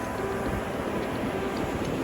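Steady rush of sea waves with wind buffeting the microphone, a low rumble underneath.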